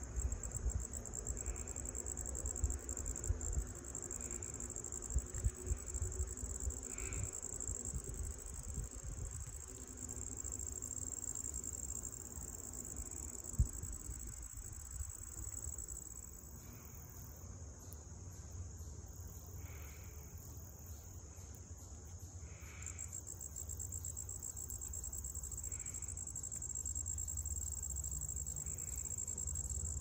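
Summer insects trilling steadily at a high pitch, with faint soft chirps repeating every second or two. Low rumble and bumps on the microphone, and one sharp tap about halfway through.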